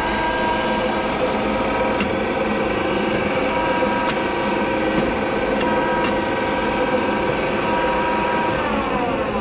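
Prescott Drillunit 150-G drill press with a three-phase motor, running with a steady whine of several tones and a few light clicks. Near the end the pitch falls as the machine winds down.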